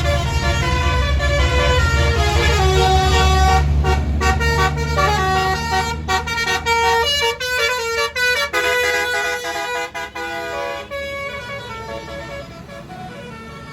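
A Basuri multi-tone 'telolet' bus horn playing a melody of stepped notes over the tour bus's low engine rumble. About six seconds in the notes turn short and choppy, and the tune stops about eleven seconds in.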